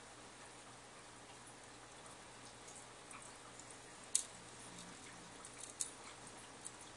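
Faint steady hum of aquarium equipment with light ticking, and two sharp clicks, the louder about four seconds in and the other near six seconds.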